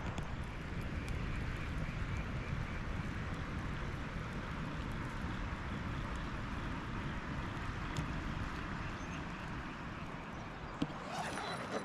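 The Snowy River, running high and rising, rushing steadily with a low rumble underneath.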